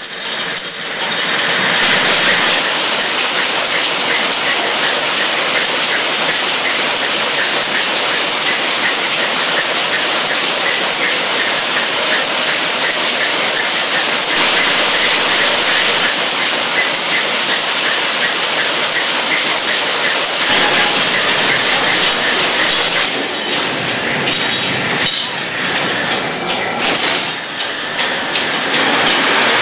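Woollen mill machinery running: a loud, steady, dense clatter of yarn spinning and winding frames, with a light regular ticking in it.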